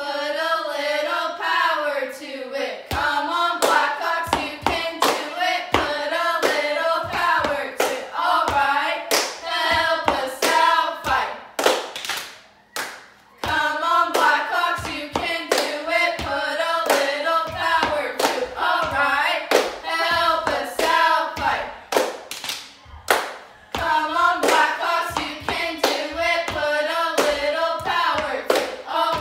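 Girls chanting a cheer together in a sing-song rhythm, punctuated by sharp hand claps. The chant breaks off briefly about twelve seconds in and again about twenty-two seconds in before starting up again.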